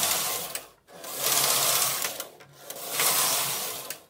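Carriage of a Silver Reed punchcard knitting machine pushed back and forth along the needle bed, knitting rows of lace: three rattling sweeps of just over a second each, with a short pause at each turn.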